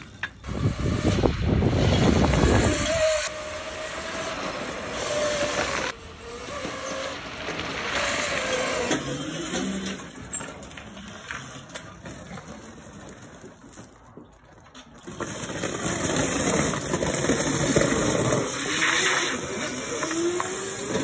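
Electric go-kart with a 3000 W 72 V motor: the motor's whine falls as it slows in the middle and rises again near the end as it speeds up, over loud stretches of tyre noise on pavement as the kart accelerates and slides.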